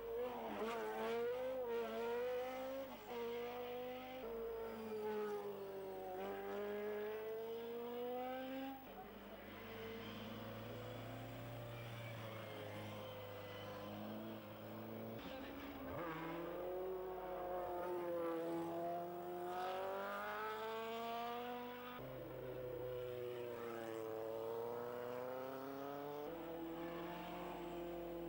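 Racing engines of a sports prototype and single-seater race cars revving hard, the note climbing and dropping every second or two through gear changes, one car after another.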